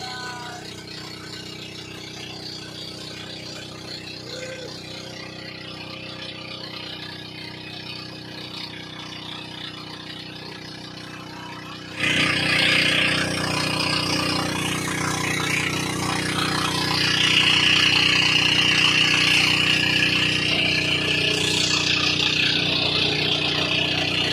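Motorized outrigger bangka engine running steadily under way. About halfway through it becomes abruptly louder, joined by the rush of water and wind.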